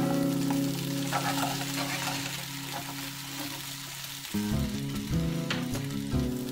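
Sliced potatoes sautéing in hot olive oil in a frying pan, with a steady sizzle under background music. The music holds one chord, then switches to a rhythmic pattern of notes about four seconds in.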